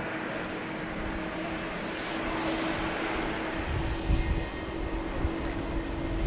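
Jet airliner engines running at taxi power: a steady rushing hum with a held tone. In the second half a thin higher whine joins and low rumbling gusts come and go.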